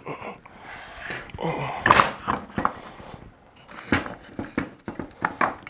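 Irregular metal clanks, knocks and clinks as the Subaru TY752 five-speed transmission case is handled and turned over on a workbench, with some tool clatter. There is a cluster of sharp knocks about two seconds in and more near the end.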